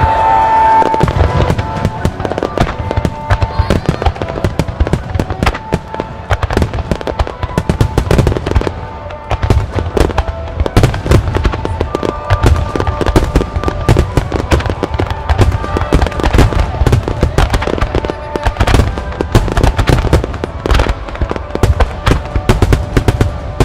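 A wide starmine of aerial firework shells bursting in a rapid, continuous barrage of bangs and crackles, with music playing along.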